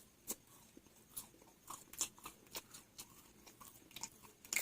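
Faint crunchy chewing of vada and raw salad: a string of short crisp crunches, about two or three a second.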